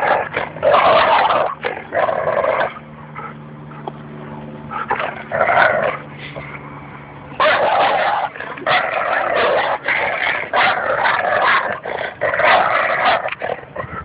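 Labrador retriever play-growling, whining and barking while tugging on a rope toy with another dog: noisy but playful tug-of-war vocalising, not a fight. It comes in loud, ragged bursts, with a quieter low, steady growl in the middle stretch.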